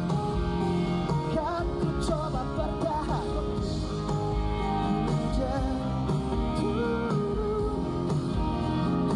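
Live pop-rock band playing through a concert sound system, with singing over electric guitars and drums.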